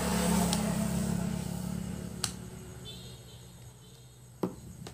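A passing motor vehicle's hum swells and fades away over the first two seconds. A screwdriver clicks sharply three times against the screws and the aluminium heatsink of a set of voltage regulators, once about two seconds in and twice near the end.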